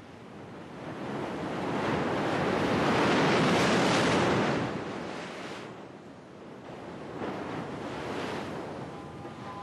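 Sea waves breaking against a rocky shore: one large surge swells up over a few seconds and falls away, then smaller breakers wash in near the end.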